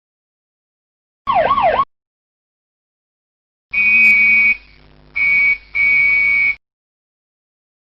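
Police car electronic siren: a half-second burst of quickly falling sweeps, then after a pause three blasts of a steady high horn tone, each cutting off abruptly.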